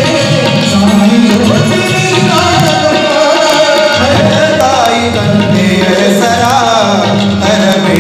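Kannada folk song (janapada geete): singing over a steady tabla rhythm, the melody wavering and ornamented.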